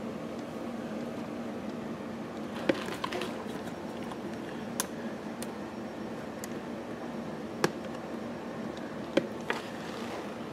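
A few sharp, light clicks of a toggle switch's friction washer and small hardware being handled and fitted against a generator's sheet-metal control panel, over a steady low room hum.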